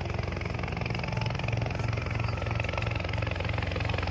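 Helicopter running steadily, its rotor giving a fast, even chopping beat over a low throb.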